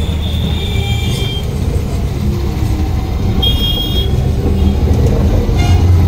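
Auto-rickshaw running, heard from inside the cab: a steady low engine rumble with road noise. Two brief high-pitched beeps sound, one near the start and one a little past halfway.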